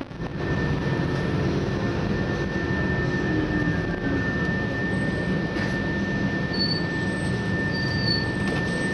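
Interior sound of a Scania CityWide 12 LF CNG low-floor city bus driving along: its compressed-natural-gas engine running with road and cabin noise, and a steady high whine throughout.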